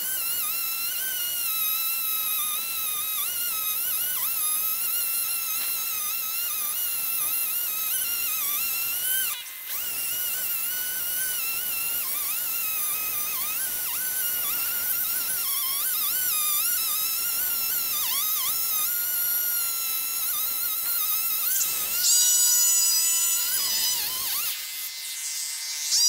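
Chainsaw running at high revs in a cut through the base of a large ash trunk, its whine wavering in pitch as the chain loads and frees in the wood, easing off briefly partway through. Near the end the saw sound gives way to other steady tones.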